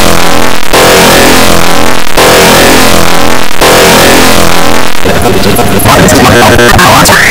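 Loud, heavily distorted loop of sound that repeats about every one and a half seconds, breaking into a jumbled, glitching stretch about five seconds in.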